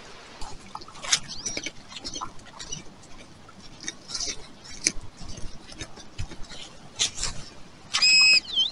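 Gloved hands scraping and rummaging through loose soil and dry leaves, with scattered small scratches and rustles. Near the end a metal detector gives a loud, steady electronic beep lasting about half a second, then a short dipping tone: a signal on metal in the ground.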